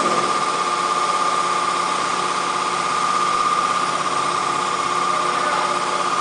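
ATC CNC router running: a steady machine hum with a high, even whine that holds one pitch throughout.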